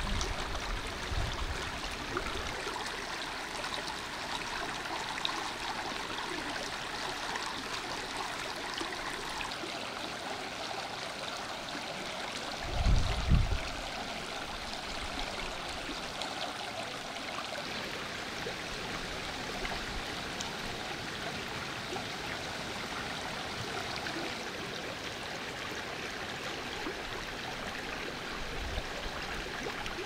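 A stream's water running steadily. About halfway through there is a brief low rumble, the loudest moment.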